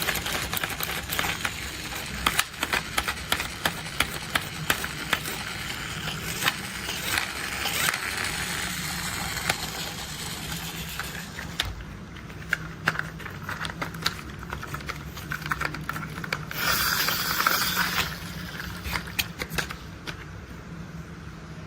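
Toy construction vehicles being handled: rapid irregular clicks and rattles of hard plastic parts over a steady low hum. The clicks thin out about halfway through, and there is a brief louder rushing noise near the end.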